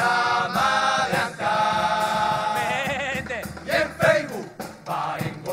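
Murga chorus singing in harmony, holding long drawn-out notes, then breaking into shorter, choppier sung syllables about three seconds in.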